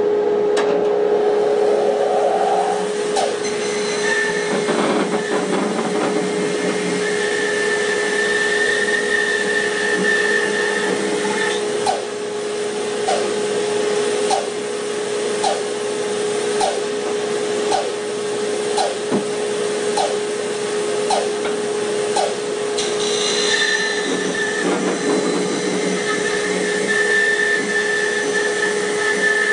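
Rikon bandsaw running with a steady hum while wood is fed against the fence; a higher whine joins twice while the blade is cutting through the blank, and a light regular ticking about once a second runs between the two cuts.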